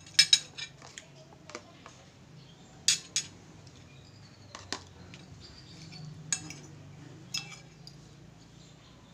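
Metal spoon and fork clinking and scraping against a ceramic plate while eating rice: irregular sharp clinks, a couple of seconds apart or closer, the loudest just after the start and about three seconds in, over a faint steady low hum.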